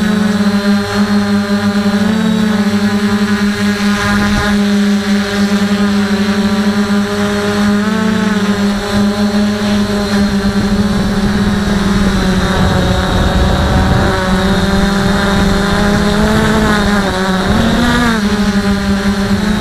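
DJI F450 quadcopter's motors and propellers running, heard from an action camera mounted on its frame: a loud, steady buzzing hum whose pitch briefly dips and swells a few times as the throttle changes, most of all near the end.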